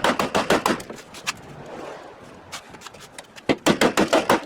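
Hammer pounding on the Range Rover's bent front bodywork to straighten collision damage so the hood lines up. A rapid run of blows in the first second, a couple of single strikes, then another rapid run near the end.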